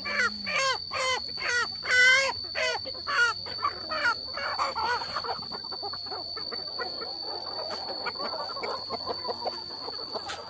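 Chickens squawking loudly in a quick series of calls, about two a second, for the first four seconds, then a quieter, busy jumble of overlapping calls from several birds.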